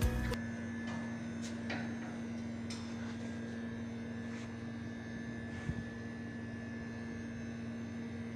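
Steady machine hum with a constant low tone, and a few faint clicks and knocks.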